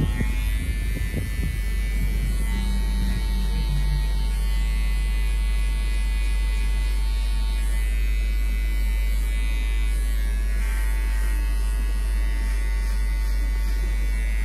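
JRL electric hair clipper with a number 1 guard running steadily as it cuts hair on the side of the head, a constant motor buzz over a low hum.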